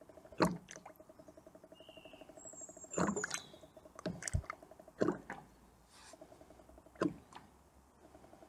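Coolant glugging steadily as it is poured from a bottle into a plastic measuring jug, with about five sharp plastic knocks along the way.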